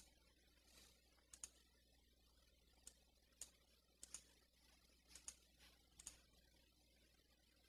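Near silence with faint, scattered computer clicks, some in quick pairs.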